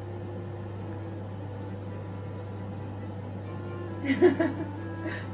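Air fryer running its preheat: a steady hum from its fan and motor. A short voice sound comes about four seconds in.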